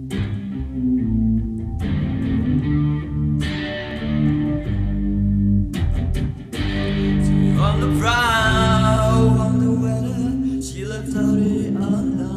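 Slow rock ballad intro played on an electric guitar with bass underneath, chords changing every second or two. About eight seconds in, a wavering, sliding lead line comes in over the chords.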